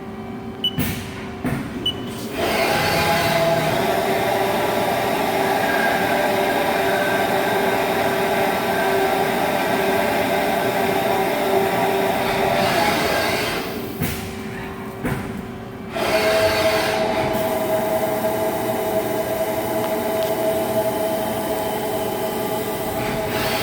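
Haas ST-20 CNC lathe spindle running with a steady whine of several pitches. It comes up to speed about two and a half seconds in, drops away briefly past the middle, then runs again at a slightly different pitch. It has been getting louder, which the owner takes for spindle bearings going bad.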